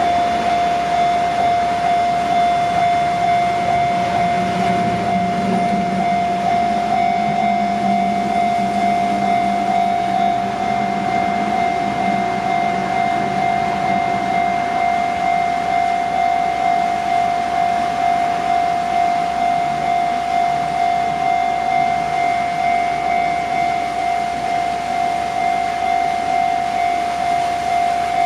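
Japanese level-crossing warning alarm ringing continuously on one steady tone, pulsing in a regular beat. In the first half a train runs past with a low rumble that swells and fades.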